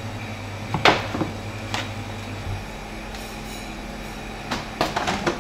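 A few sharp knocks and clinks of kitchenware being handled on a counter, the loudest about a second in and a quick cluster near the end, over a steady low hum.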